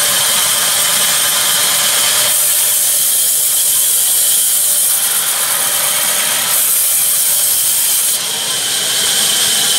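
Large sawmill band saw cutting lengthwise through a log: a loud, steady, high hiss that shifts abruptly in tone a few times as the cut goes on.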